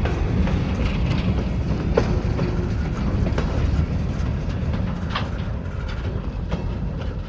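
Freight train of empty stone cars rolling past close by: a steady low rumble of wheels on rail with scattered clicks and clanks.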